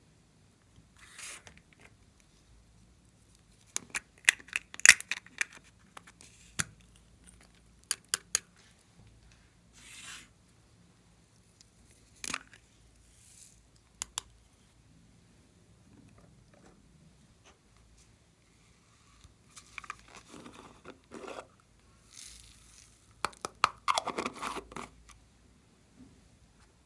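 Slime worked by hand, stretched and pressed, giving short tearing, crackling pops in scattered clusters; the loudest run comes near the end.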